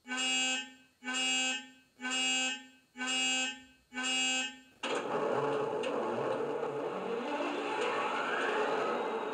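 Class 66 diesel locomotive sound from a model's DCC sound decoder, played through small onboard speakers: five evenly spaced warning beeps about once a second, then the diesel engine starts up and runs with a rising note.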